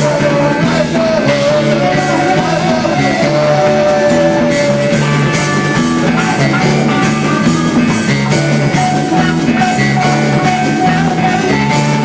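Live rock band playing: electric keyboard, electric guitar, bass and drums, with long held lead notes over a steady beat.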